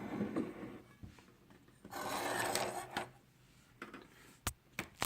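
Hand tools being handled and slid over a surface: a short rubbing scrape at the start, a longer one about two seconds in, then three light clicks near the end.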